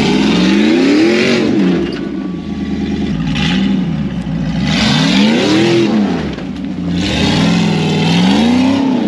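An off-road 4x4's engine is revved hard about three times, its pitch climbing and dropping back with each surge, as the vehicle works its way over an obstacle.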